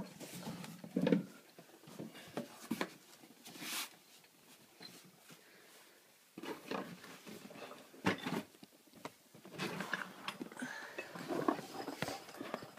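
Irregular knocks, bumps and rustling as boxes and household items are handled and passed up through an attic hatch, with a quieter lull about halfway through.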